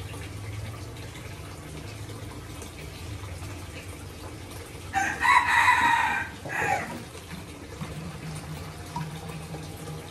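A rooster crows once, loudly, about five seconds in, over a steady low hum. Liquid trickles softly as it is poured from a plastic jug into a plastic bottle.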